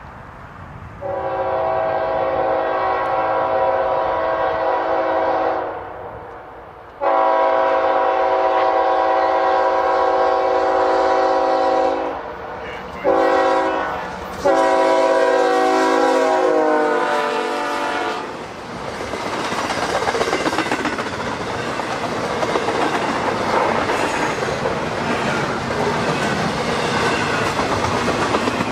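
A freight locomotive's multi-chime air horn sounds long, long, short, long, the standard grade-crossing signal, and the last blast drops in pitch as the CSX GE lead locomotive passes. Then a double-stack intermodal train rolls by, a steady rumble of steel wheels on rail with clickety-clack over the joints.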